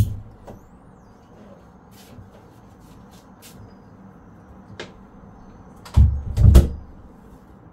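A few light clicks, then two heavy low thumps in quick succession about six seconds in.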